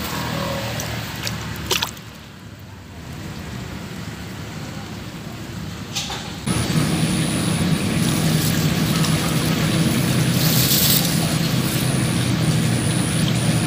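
A few sharp knocks and handling rustles. Then, about six seconds in, a steady engine drone begins suddenly, with a thin high-pitched whine above it that keeps breaking off.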